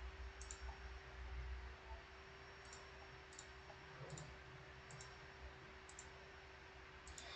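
Faint computer mouse clicks, about eight of them scattered a second or so apart, over a faint steady hum.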